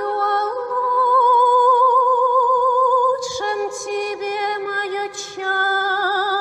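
Female voices singing long held notes in harmony with slight vibrato, broken by a few hissing consonants about three and five seconds in. This is a passage from an experimental opera whose text and music were generated with AI.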